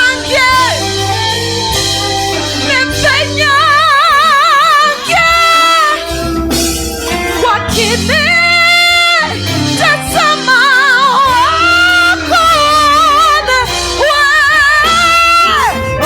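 Live worship music: a high voice sings long held notes with wide vibrato over steady instrumental backing.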